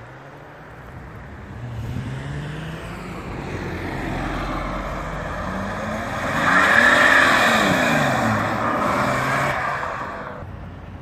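BMW E60 5 Series saloon pulling out and accelerating away. Its engine rises in pitch and grows louder, is loudest a little past the middle as it passes close, then drops in pitch and fades.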